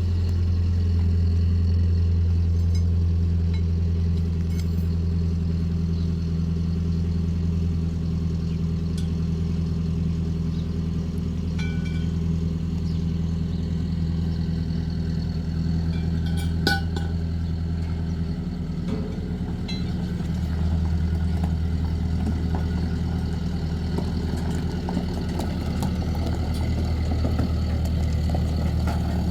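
An engine running steadily with a low hum, which briefly dips about two-thirds of the way through. A few faint clinks are heard around the middle.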